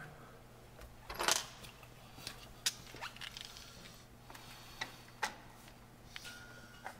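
Small metal parts and a hex key being handled while a handle is screwed onto a machine-guard hitch lock: a brief scrape about a second in, then a few sharp, separate clicks and knocks over a faint steady hum.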